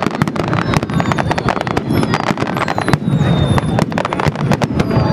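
Aerial fireworks going off in quick succession: dense crackling from many small bursts over a continuous low rumble of shell explosions, with faint thin whistles now and then.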